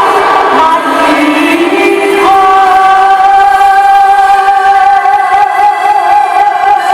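Women singing a song with instrumental accompaniment. About two seconds in, a long note is held with vibrato until near the end.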